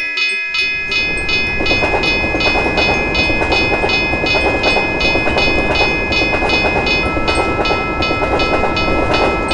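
Railroad crossing warning bell ringing rapidly, about three strikes a second, over the steady rumble of a passing train. A second steady tone joins about seven seconds in.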